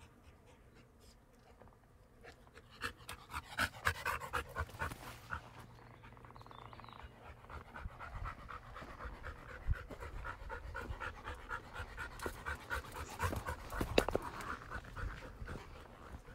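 A dog panting rapidly and evenly, starting about two seconds in, with louder, noisier bursts around four and fourteen seconds in.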